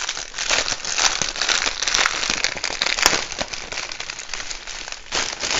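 Clear plastic packaging around a strip of bagged diamond-painting drills crinkling and crackling as hands handle and open it. The crackle is densest for about the first three seconds, then quieter, with another short burst near the end.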